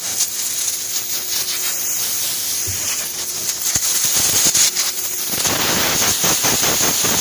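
ATC CNC wood router running: a steady high hiss with scattered clicks and ticks, growing louder about five seconds in.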